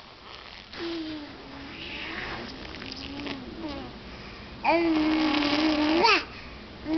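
Nine-month-old baby babbling: soft, wavering vocal sounds, then about four and a half seconds in a loud, held 'aah' that flicks up in pitch at its end, with another beginning right at the end.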